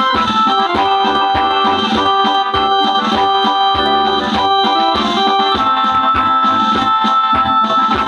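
Keyboard backing music with sustained, organ-like chords that change every second or two over a steady beat.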